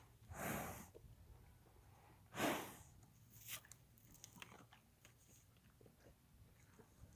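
A horse blowing out hard through its nostrils twice, about two seconds apart, then faint scattered clicks.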